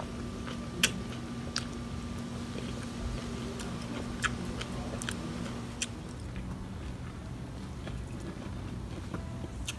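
People eating hot pot: chewing and biting, with a handful of sharp clicks of utensils and dishes, over a steady hum that stops about six seconds in.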